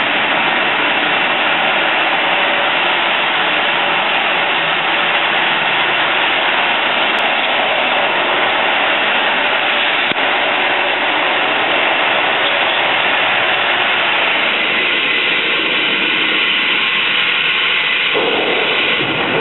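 Missile elevator machinery running as the platform lowers into the underground magazine: a loud, steady mechanical noise that changes slightly near the end and falls away as the elevator stops.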